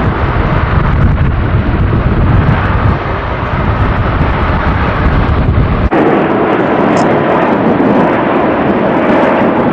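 Singapore Airlines Boeing 777's jet engines at takeoff thrust as the airliner climbs away: a loud, deep rumble with strong wind buffeting the microphone. About six seconds in, the sound cuts abruptly to a steady rushing noise with far less rumble.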